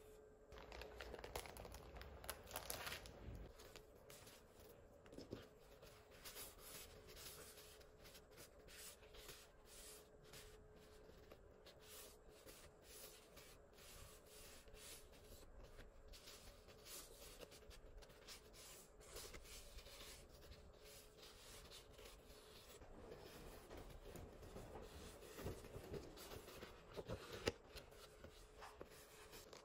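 Stiff paper stickers shuffled between the fingers, then textured paper envelopes fanned and handled: quiet, crisp paper rustles with light taps and scrapes. The rustles are loudest a few seconds in and again near the end.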